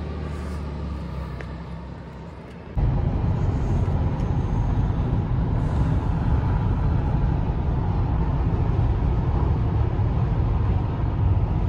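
A vehicle engine idling with a steady low hum; about three seconds in it switches abruptly to a much louder, steady low rumble of a vehicle under way.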